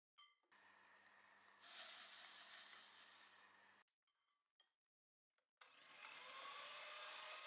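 Electric hand mixer whipping egg whites. The motor runs steadily, cuts off just under four seconds in, and starts again about two seconds later with a whine that rises in pitch as it speeds up.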